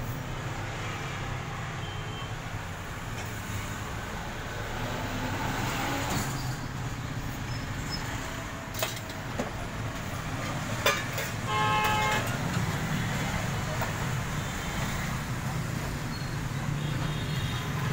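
Street traffic running steadily, with a short vehicle horn toot about twelve seconds in. A couple of sharp clicks come a few seconds before it.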